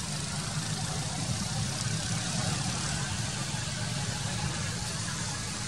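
A steady low engine hum under an even hiss, unchanging throughout.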